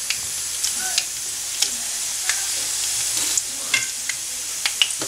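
Mustard seeds and dry red chilies frying in hot oil in a pan: a steady sizzle with scattered sharp pops as the seeds splutter.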